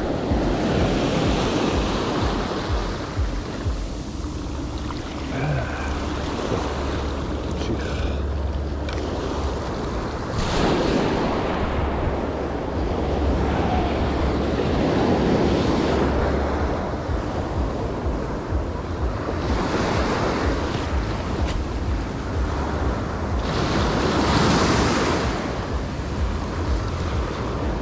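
Sea surf breaking and washing over a rocky shore, swelling every few seconds as each wave comes in, with wind buffeting the microphone.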